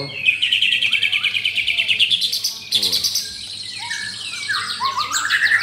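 White-rumped shama (murai batu) singing a fast, loud burst of rapidly repeated high notes, then varied sweeping phrases.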